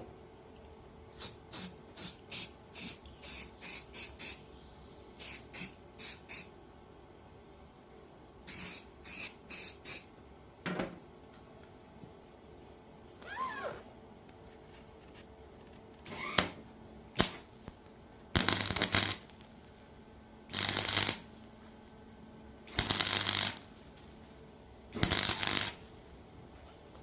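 Gasless flux-core MIG welder arc crackling in short tack welds. A quick run of brief bursts comes first, then four longer, louder bursts in the last third, while cracks are tacked up.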